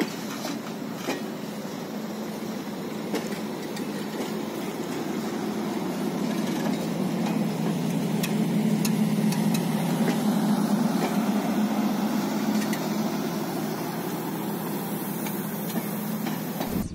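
Locomotive-hauled passenger coaches rolling slowly along the track: a steady low rumble that swells in the middle and eases off near the end, with scattered clanks and clicks from the wheels and running gear.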